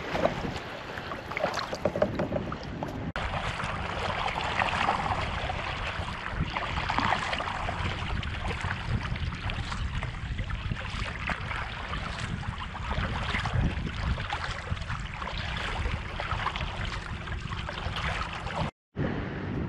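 Sea kayak under paddle: water swishing and splashing along the paddle blades and hull, over a steady wind hiss on the microphone. The sound drops out for a moment near the end.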